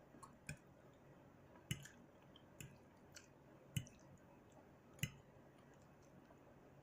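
Eating sounds close to the microphone: about six short, wet mouth clicks and smacks while chewing.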